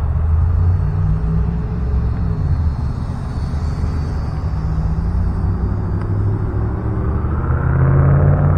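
Small electric RC airplane (E-flite Night Vapor) flying with its motor and propeller buzzing over a steady low rumble. It grows louder near the end, its pitch rising as it comes close.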